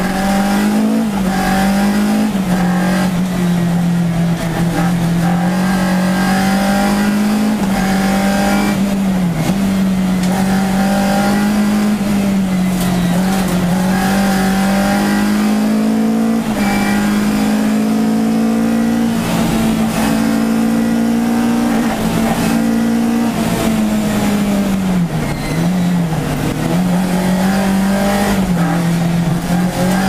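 VW Golf Mk1 GTI's four-cylinder engine running hard at high revs under full throttle, heard from inside the cabin. The pitch holds high and steady, dipping briefly and climbing back a few times.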